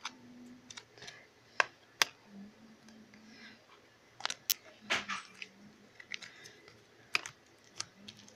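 Scattered sharp clicks and taps with brief rustles: hands handling and opening slime packaging.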